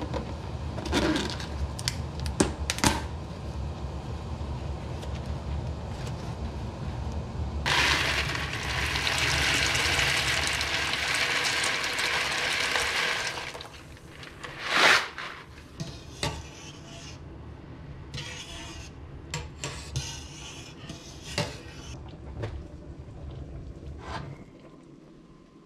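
Stovetop cooking sounds: a cardboard pasta box handled and opened with a few sharp clicks, then a steady rushing for about six seconds, then a loud metal clank of a pot about fifteen seconds in and scattered lighter clatter, over a low hum that stops near the end.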